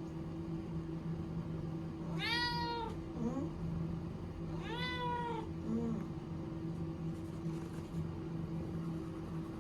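A cat meowing twice, each call under a second long, about two and a half seconds apart.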